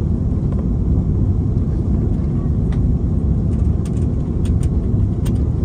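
Steady low rumble of an Airbus A330's engines and airflow heard inside the cabin on final approach, with a few faint clicks in the second half.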